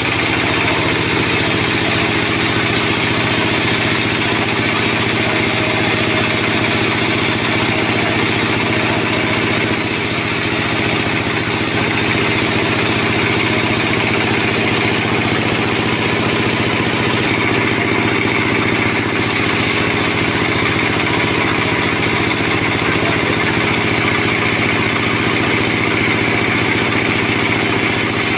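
Band sawmill running steadily as its blade rips lengthwise through a squared sonokeling timber: a continuous low mechanical drone under the hiss of the cut.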